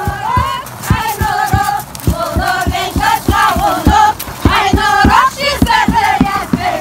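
A group of women singing a folk song together in long, wavering notes, over a steady low beat of about four strokes a second.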